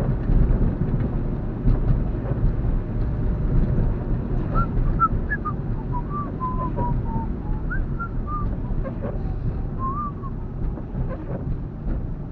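Steady low rumble inside a car driving on a wet road in the rain. From about four and a half to ten seconds in, a string of short high whistle-like notes sounds over it.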